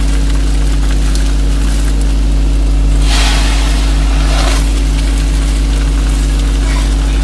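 Steady low drone of an ambient background music track, with a swell of hiss about three seconds in.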